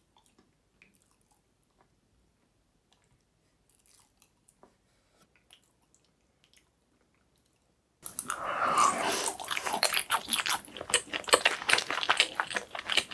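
A few faint clicks as a knife and a fork cut into a soft cake made of milk and chocolate. Then, about eight seconds in, loud close-miked chewing of a mouthful of the cake.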